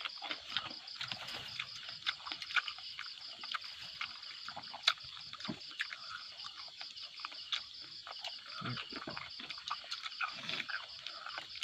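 A steady chorus of insects trilling in a fast, even pulse, with close-up wet chewing and smacking from someone eating and scattered small clicks.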